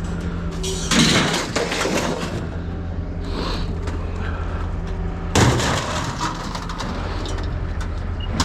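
A vehicle engine idling steadily. It is broken twice by loud crashing, clattering bursts, about a second in and again past the five-second mark, like scrap being dumped or crushed.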